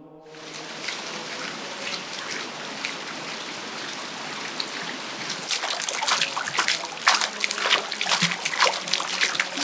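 Running water trickling and splashing, a steady spatter that grows busier and more splashy about halfway through.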